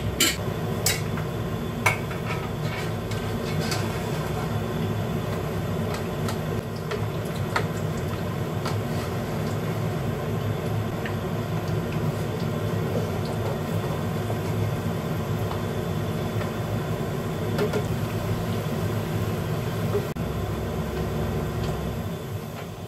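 Fu yung hai omelette frying in oil in a pan over a gas burner: a steady frying sound over a constant low hum, with a few sharp clicks of utensils against the pan near the start.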